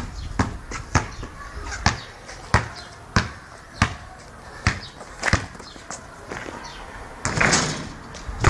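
A basketball being dribbled on a paved outdoor court, bouncing about once or twice a second in an uneven rhythm. Near the end comes a brief, louder rushing noise.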